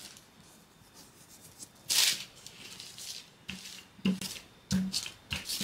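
Wooden rolling pin rolling dough out on parchment paper: a brief hissing rub of the pin and paper about two seconds in, then a few shorter rubbing strokes near the end.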